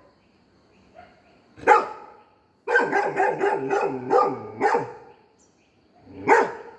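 Golden retriever barking in alarm: one bark, then a quick string of barks, then a last bark near the end.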